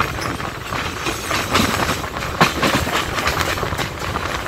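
Electric suburban local train running on the track, heard from an open doorway: a steady rolling rumble with irregular sharp clicks as the wheels pass over rail joints.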